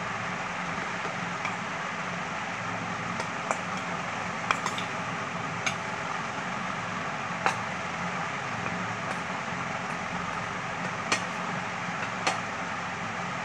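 A steel spoon clinking sharply against a steel bowl about six times while scooping cooked rice and vegetables, over a steady background hiss.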